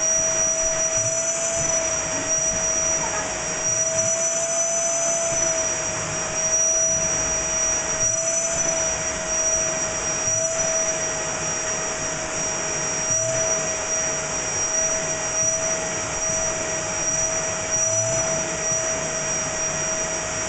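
Bagless cylinder vacuum cleaner running steadily, with a whine that wavers slightly in pitch as the hose nozzle is drawn through a dog's coat to suck up loose hair.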